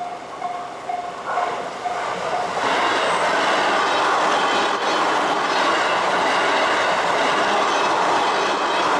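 A level-crossing warning bell ringing about twice a second, soon drowned out from about two seconds in by a train passing through the crossing, its wheels and running noise loud and steady with a clickety-clack on the rails.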